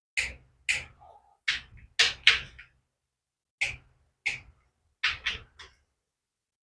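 Click-type torque wrench clicking sharply, about ten times in uneven groups, as it reaches its set torque of about 80 inch-pounds on the transmission oil pan bolts being tightened in order.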